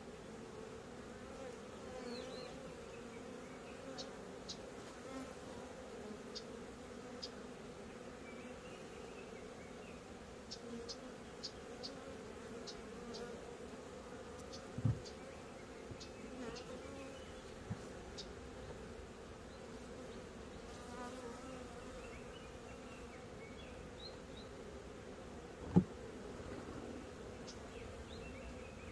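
Honeybees buzzing around a wooden hive box in a steady hum, with short high ticks scattered through it. Two low thumps come about halfway through and near the end, the second louder.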